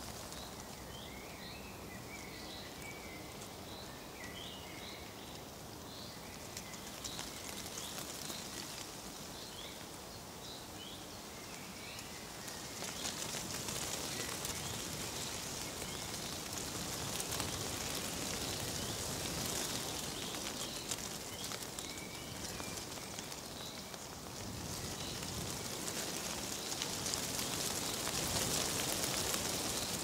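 Dry leaves rustling with a soft crackle, with small birds chirping over it for the first dozen seconds. About twelve seconds in, the leaf rustle grows louder and crisper, and it swells again near the end, with only a few scattered chirps.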